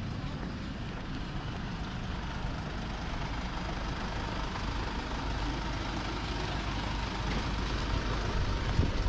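A motor vehicle's engine running close by, a steady low rumble that grows louder near the end.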